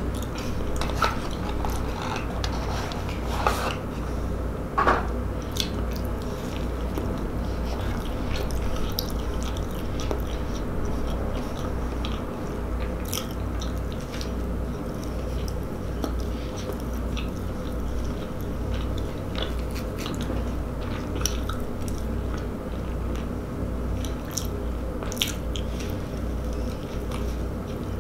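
A person chewing and biting into a White Castle slider close to the microphone, with short mouth clicks scattered throughout, over a steady low hum.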